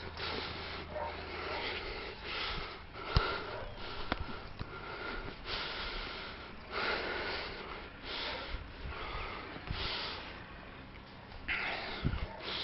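A climber's heavy breathing close to the microphone: hard, noisy breaths about every second or so. A few sharp knocks break in, around three and four seconds in and again near the end.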